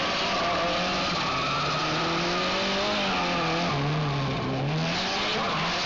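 Lancia Delta HF integrale's turbocharged four-cylinder engine revving up and down as the car is driven hard, with tyre noise swelling about five seconds in.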